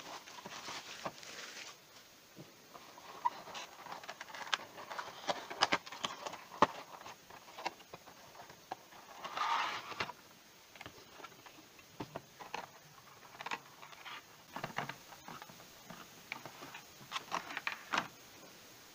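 Cellophane wrap being pulled off a cardboard box, then a clear plastic blister case being handled and opened. The sound is crinkling and rustling, with many small sharp clicks and taps and a denser rustle about halfway through.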